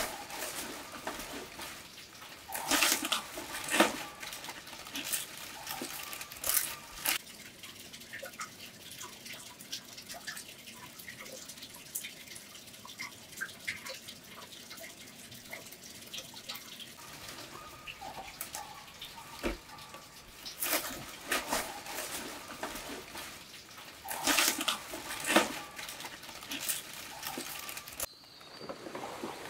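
Dry palm-leaf thatch rustling and crackling in bursts as it is handled, with sharp clicks. There is a quieter stretch of faint ticking in the middle.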